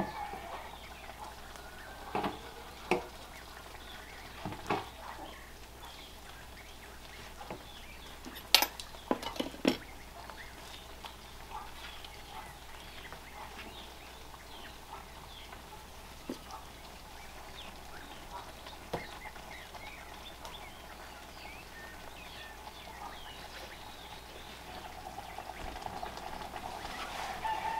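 Scattered light knocks and scrapes of spoons against clay cookware as stew is served from a clay pot into a clay bowl and then spooned from the bowl, the loudest knocks coming in a cluster a little past a third of the way in, over a quiet, steady background.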